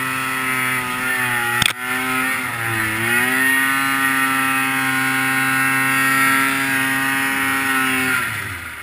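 A 600 snowmobile engine running hard at high revs up a climb. The revs sag and recover about two and a half seconds in, then fall away near the end. A single sharp knock sounds just before two seconds in.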